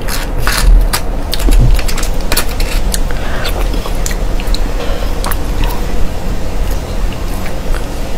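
Close-miked eating sounds: a metal spoon clicking and scraping in sea urchin shells as the roe is scooped out and eaten, with many sharp clicks over a steady low rumble.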